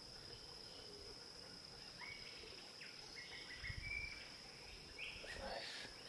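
Faint forest ambience: a steady, high-pitched insect drone, with a few short bird whistles from about two seconds in and a brief low rumble a little past the middle.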